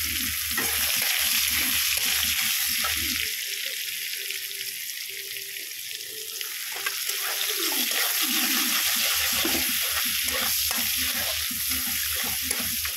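Chopped garlic sizzling in hot oil and ghee in a kadai, a steady hiss, with a flat metal spatula stirring and scraping in short strokes through the second half.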